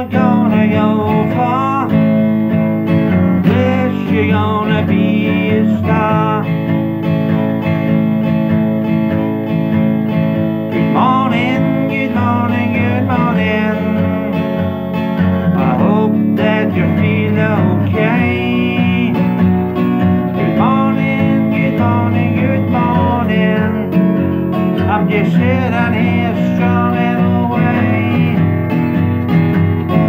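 A man singing to his own strummed acoustic guitar, the voice coming in lines with guitar-only gaps between them.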